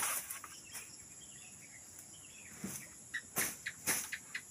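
Steady high-pitched chorus of crickets and other insects, with several sharp knocks near the start and near the end.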